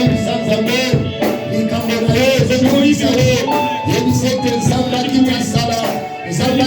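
Church worship music playing: singing voices over held instrumental tones.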